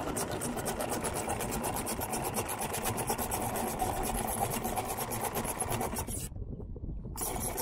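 Anchor windlass hauling anchor chain in over the bow roller: the links clatter in a rapid, even rhythm of about six a second, with a steady whine under it. The clatter breaks off for under a second about six seconds in, then resumes.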